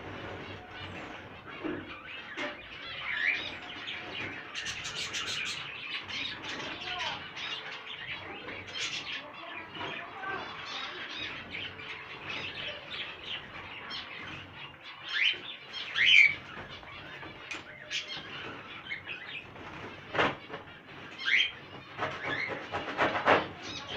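Many small pet birds chirping and calling in short, quick notes in an aviary, with wings flapping at times. Near the end come a run of sharp clicks or scrapes.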